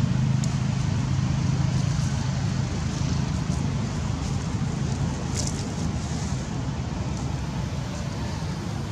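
Steady low motor-like drone with a hiss over it, fading slightly toward the end, and a few faint clicks.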